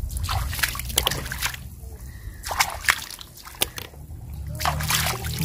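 Hands splashing and sloshing in shallow muddy water while feeling through the silt for freshwater mussels, with a few sharp clicks and knocks scattered through.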